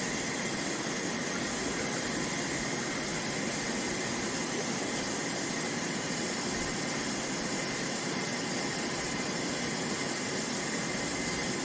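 Water running steadily from a kitchen faucet into the sink and down the drain, an even rushing hiss that stops near the end.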